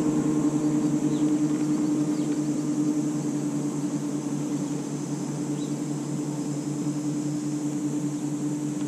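Steady electric hum of a bass boat's trolling motor holding the boat in position, one even tone with a few overtones that eases a little in level.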